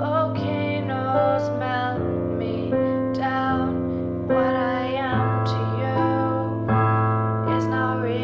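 A woman singing long held notes over sustained chords on a digital keyboard set to a piano sound, the chords changing every second or two.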